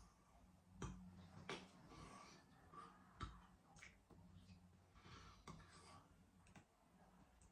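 Near silence: room tone with a faint low hum and a few scattered faint clicks and breaths.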